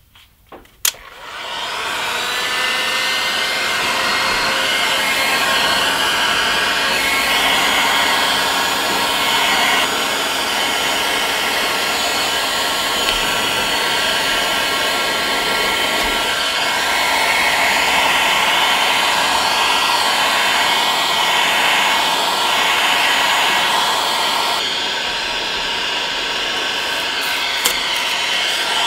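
Hot-air heat gun switched on with a click about a second in, then running steadily, blowing hot air onto a sticker on a guitar body to soften its adhesive.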